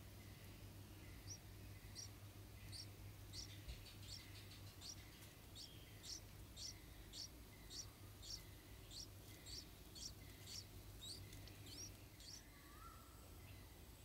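Faint begging calls of yellow-vented bulbul nestlings: a regular series of thin, high squeaks, about two a second, which stop near the end, followed by a short lower note.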